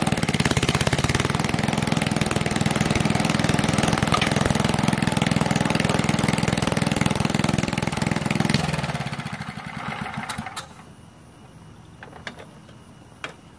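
Early-1960s Ariens Emperor 3ML6 riding mower's replacement engine running steadily, then slowing and dying out a little after eight seconds in. A couple of faint clicks follow once it has stopped.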